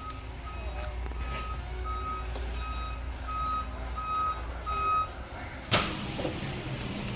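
Reversing alarm beeping steadily at one pitch, about one and a half beeps a second, stopping about five seconds in. Near the end comes a single sharp knock, followed by a low steady hum.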